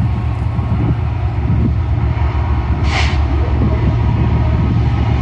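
Diesel locomotives of an approaching freight train running as a steady, heavy low rumble. A brief hiss comes about three seconds in.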